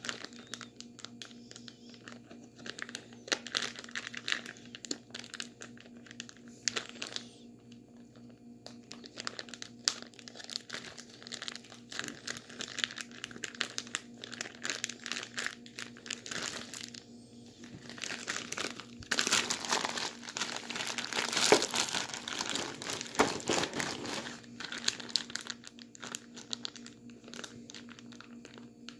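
Plastic bag crinkling and rustling as it is handled and shaken with ice and salt inside to freeze a drink into slush. The crackles are irregular and get louder and denser for several seconds in the second half.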